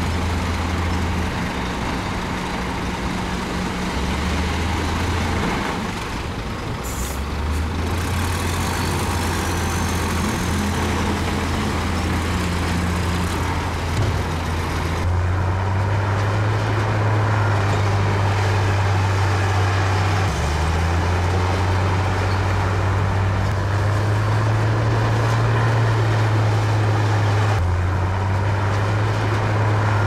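Heavy construction machine's diesel engine running hard and steadily, its pitch stepping up and down several times as the engine speed changes, over a broad rumble. A short high hiss comes about seven seconds in.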